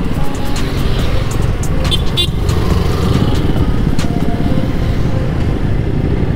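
Yamaha motorcycle's engine running steadily while riding, heard from the bike.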